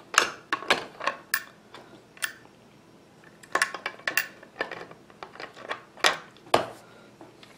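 Irregular sharp metallic clicks and clinks, about a dozen, some in quick pairs, from the parts of a Marlin 39A .22 lever-action rifle being wiggled and fitted back together so the action halves seat before the takedown screw is started.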